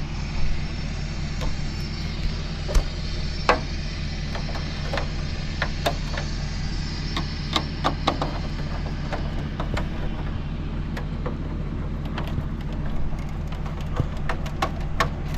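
A steady engine hum, with scattered clicks and light knocks over it; a higher hiss fades out about two-thirds of the way through.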